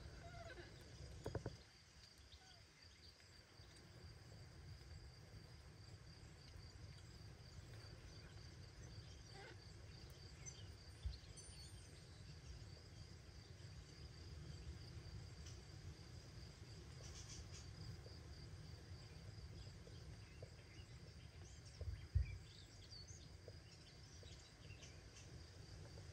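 Near silence: faint room tone with a steady, slightly pulsing high-pitched whine and a low rumble, broken by a few soft thumps, the loudest near the end.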